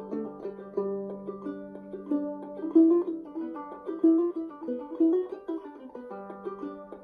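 A plucked string instrument playing an old-time fiddle tune, with a lively run of separate melody notes over a steady drone note.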